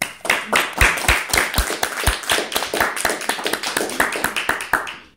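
Audience applauding, a dense patter of hand claps, with a few louder claps close by in the first two seconds; the applause cuts off abruptly at the end.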